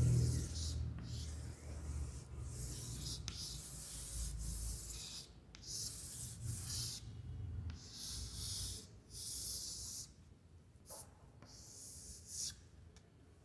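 Chalk scraping on a chalkboard as long curved lines are drawn: about a dozen separate strokes, each around a second long, with short pauses between them, growing fainter after about ten seconds.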